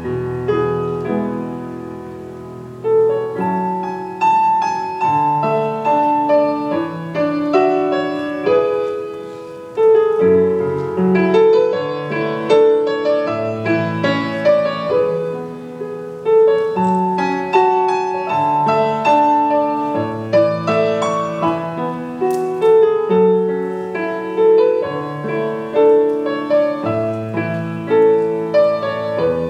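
Solo piano playing a slow, gentle piece: melody notes over rolling chords, each note struck and left to ring.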